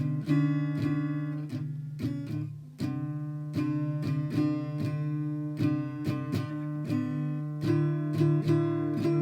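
Instrumental music: a guitar playing picked and strummed chords, with a short dip in loudness about two and a half seconds in.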